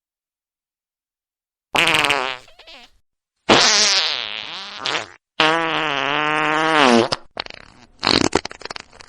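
A string of farts after a second and a half of silence: a short one, then two long drawn-out ones, the first wavering down and back up in pitch, the second holding a steady pitch, then a brief blip and a last sputtering, crackly one.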